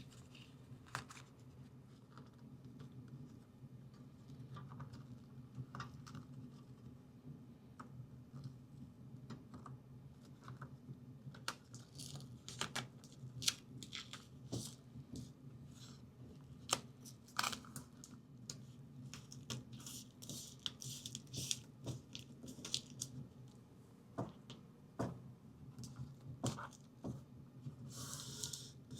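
Shielding tape being peeled, torn and pressed down by hand: faint tearing and crinkling with scattered small clicks and taps, over a low steady hum.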